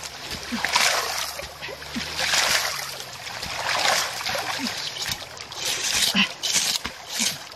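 Wet splashing and slopping of hands scooping mud and water in a shallow stream, in irregular bursts over running water.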